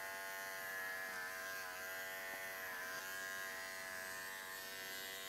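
Cordless pet hair clipper, a Wahl Bravura, running with a steady electric buzz while it trims a Maltese's coat. Its pitch dips slightly a couple of times.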